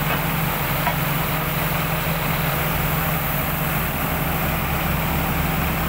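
Borewell drilling rig's engine running steadily with an even low hum.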